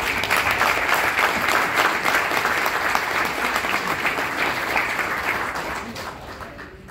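Audience applauding, the clapping dying down over the last couple of seconds.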